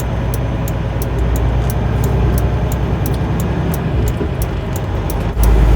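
Semi truck's diesel engine running as the truck creeps along, heard from the cab, with a light regular ticking over the rumble. About five seconds in, the engine's low rumble rises suddenly and stays louder.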